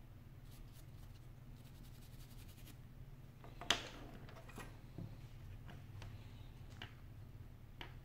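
Light scratching and small clicks from handling iPhone 5 repair parts: a brush worked over the metal back plate of the removed display assembly, with a quick run of fine ticks, then one sharp click a little before halfway and a few smaller clicks after it.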